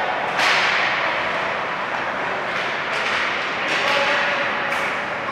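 Ice hockey play on a rink: sharp scrapes and knocks from skates, sticks and puck, the loudest about half a second in and a few weaker ones later, over a steady rink din.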